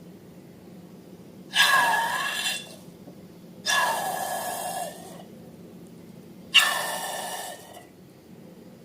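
Three short breathy hisses with a faint whistle in them, each starting suddenly and fading over about a second.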